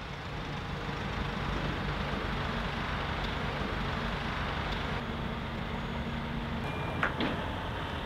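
Heavy truck's diesel engine running steadily under outdoor noise. Its note stops about two-thirds of the way in, followed by two short sharp sounds near the end.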